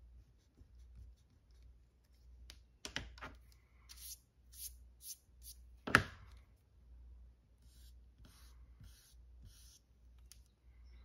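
Eraser rubbing over the paper cover of an old comic book, in short back-and-forth strokes at about two to three a second, in two spells. A single sharp click about halfway through, the loudest sound.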